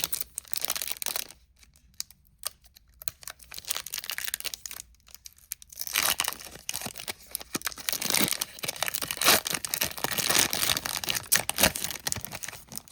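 Foil Pokémon booster pack wrapper being crinkled and torn open by hand, with crackling in the first second, a quieter stretch of scattered crackles, then dense crinkling from about six seconds in until just before the end.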